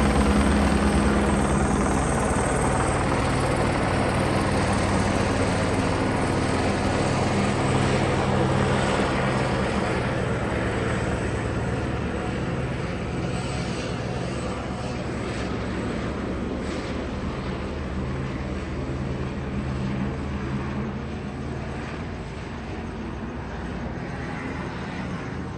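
A police helicopter's rotors and engine running steadily, the sound slowly growing fainter.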